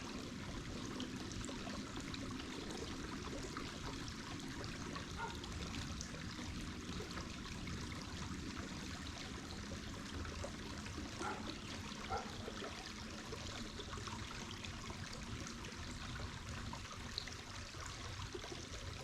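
Steady rush of running water from a creek or falls.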